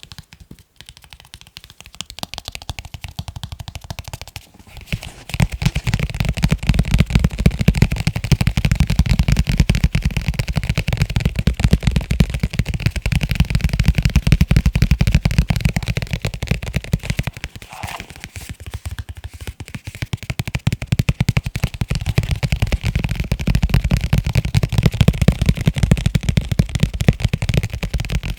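Fast tapping on leather cases, a dense rapid patter of taps. Lighter for the first few seconds, then heavier and thuddier from about five seconds in, with a brief lull just past halfway.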